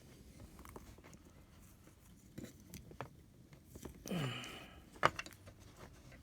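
Small crackles and clicks of old sticky tape being peeled and pulled off a charger cable. About four seconds in there is a short low grunt falling in pitch, and a sharp click follows about a second later.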